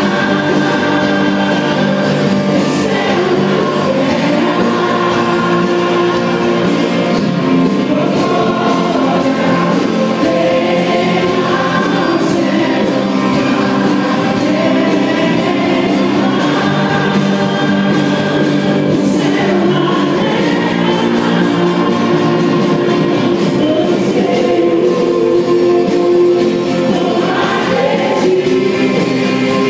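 Christian worship song: several voices singing together over sustained instrumental accompaniment, at a steady level.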